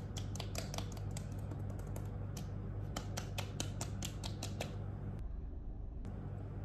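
Quick series of light taps: fingertips patting skincare product into the face to help it absorb, stopping about four and a half seconds in. A steady low hum runs underneath.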